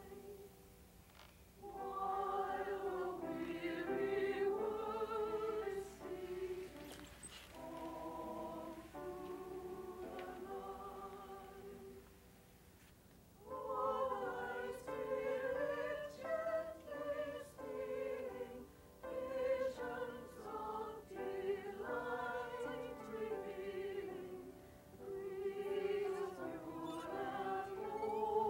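Choir singing a slow melody in phrases of held notes, with short breaks between them.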